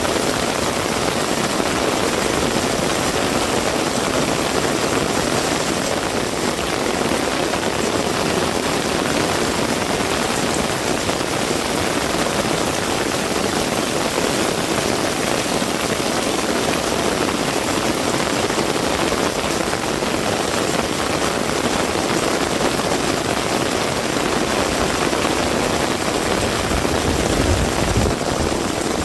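Heavy rain falling steadily, a dense even hiss of rain on surfaces. A low rumble swells briefly near the end.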